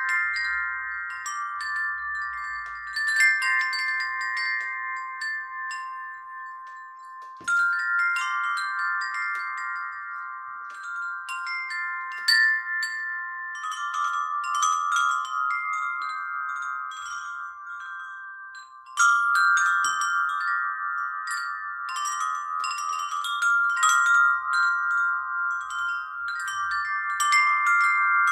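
Chimes ringing: many high, bell-like notes struck at random and left to ring over one another, with louder clusters of strikes about 7 and 19 seconds in.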